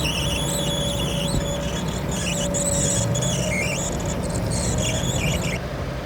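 Grimme Varitron 270 potato harvester working, its moving parts squeaking in wavering high squeals over the steady drone of the machine. The squeals stop about five and a half seconds in, leaving the drone.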